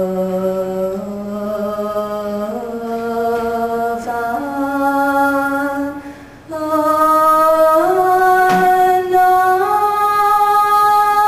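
A Buddhist nun chanting solo without accompaniment. She holds long notes that climb step by step, with a breath about six seconds in.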